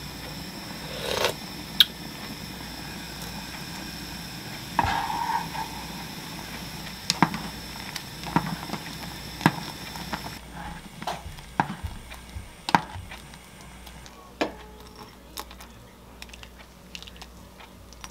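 Cooking sounds from a pot of egg-drop soup on a gas stove: scattered knocks and clicks of a wooden spoon against the pot as the soup is stirred, over a low steady background.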